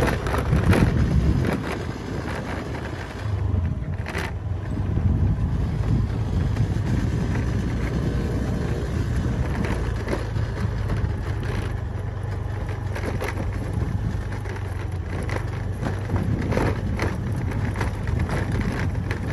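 Motorcycle engine running steadily while riding over an unpaved dirt road, with a steady low hum under rough road and wind noise.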